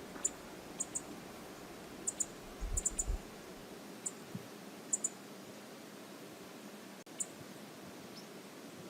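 Steady rush of river ambience at an outdoor wildlife camera, with about a dozen short, high-pitched ticks scattered through it, some in quick pairs, and a brief low rumble a little under three seconds in.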